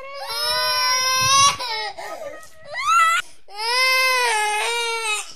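High-pitched crying: a long wail of about a second and a half, a short cry, then another long wail.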